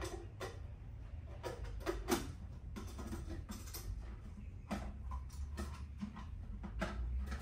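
Light clinks and knocks of a stainless steel camping cook pot and its lid being handled and opened, coming irregularly a dozen or so times, over a low steady hum.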